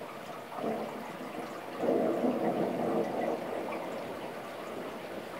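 Heavy rain falling during a thunderstorm, with a louder rush of water that swells up about two seconds in and eases off after about a second.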